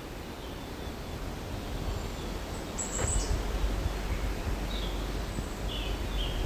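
A few short, high bird chirps, scattered over a steady outdoor background noise.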